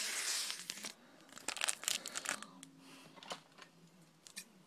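Foil wrapper of a Pokémon booster pack being torn open: a continuous rip for about the first second, then scattered crinkles of the foil as the opened pack is handled.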